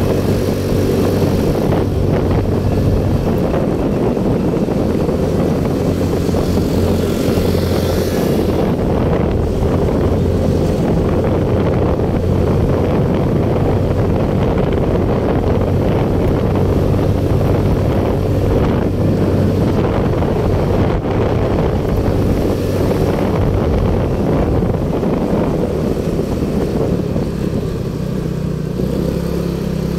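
Motorcycle engine running steadily at cruising speed while riding, with wind rushing over the microphone. Near the end the engine note drops lower briefly.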